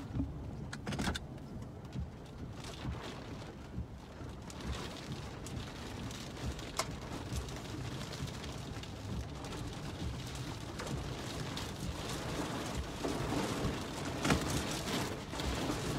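Rain pattering on a moving car's windshield over a steady low road and wind rumble inside the cabin, with scattered sharp taps of heavier drops. This is the rain of a tornadic storm's rear flank downdraft, and it grows heavier over the last few seconds.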